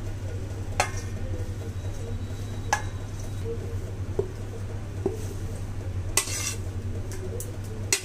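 A steel spoon scraping chopped moringa leaves off a plate into a steel bowl. There are a few sharp clinks of spoon on the dishes and a longer scrape near the end, over a steady low hum.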